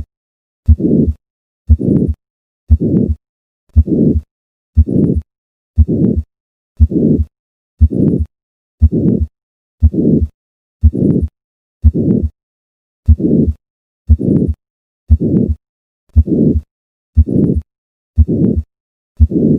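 Heart heard through a stethoscope in hypertrophic cardiomyopathy at the fourth left intercostal space: a regular beat of about one a second. Each beat is a sharp first heart sound followed by a harsh systolic murmur lasting about half a second, with silence before the next beat.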